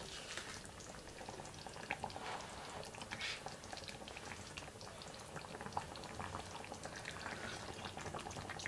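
Tomato-based chicken stew simmering in a pan, a faint steady bubbling with small pops.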